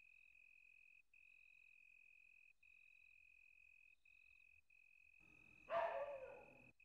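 Faint cricket chirping: a steady high trill broken by short gaps every second or so. A brief louder sound comes near the end.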